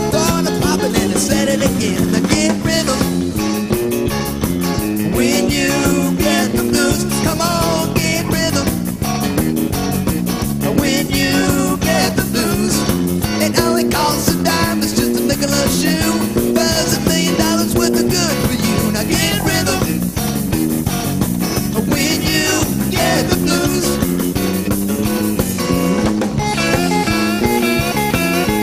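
Live band playing an instrumental passage: an electric guitar lead with bending notes over a stepping bass line and drums.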